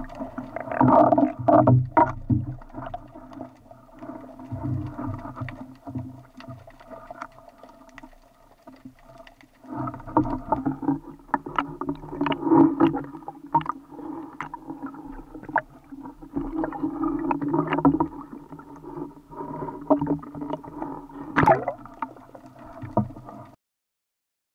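Sea water sloshing and splashing around a waterproof action camera at the surface, with knocks from handling the speargun and the catch. It cuts off suddenly near the end.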